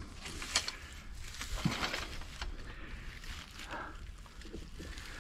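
Metal-framed folding lawn chair being handled and twisted, its tubing giving a few light knocks and clinks amid rustling of fabric and dry pine straw.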